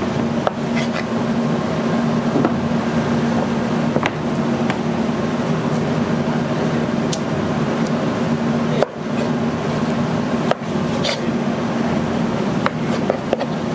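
Steady hum of kitchen ventilation, with a few light clicks of a chef's knife against a plastic cutting board as fat is trimmed from a dry-aged porterhouse steak.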